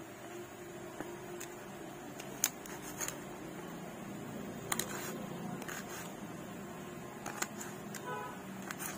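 Knife cutting shallots held in the hand over a stainless steel bowl: irregular sharp clicks, roughly once a second, over a steady low hum.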